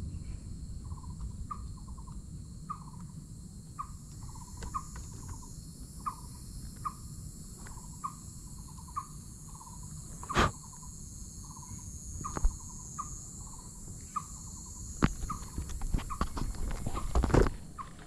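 A short call repeated about twice a second over a steady high insect hum, in dense vegetation. Scattered sharp knocks and crunches come from the camera being handled on a stony path, with a louder cluster near the end as it is set down on the stones.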